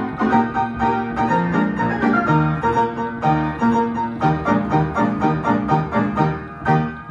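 Piano playing a march: regular low bass notes under chords and a higher melody.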